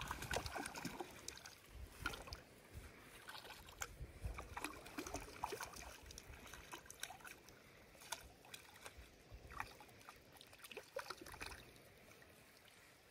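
A hooked trout splashing at the lake's surface as it is brought in to a landing net, in short irregular splashes.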